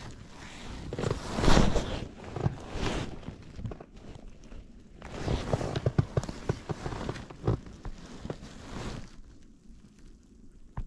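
Rustling and scraping handling noise from a rain jacket's sleeve rubbing close to the microphone while an angler works a spinning rod and reel, in irregular bursts: a loud burst about a second and a half in, and another run of rustles and clicks from about five to nine seconds.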